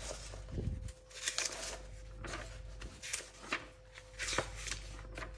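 Paper rustling in short, irregular bursts as the pages of an instruction booklet are leafed through.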